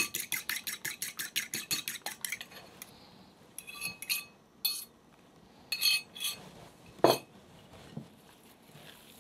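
A fork whisking an egg in a small ceramic bowl: rapid, even clinking strokes, about eight a second, that stop about two seconds in. Then a few scrapes and taps as the beaten egg is tipped from the bowl into a glass mixing bowl, and a single knock about seven seconds in.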